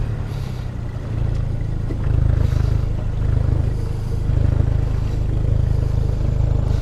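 Boat's outboard motor running at low speed: a steady low rumble that gets louder about two seconds in.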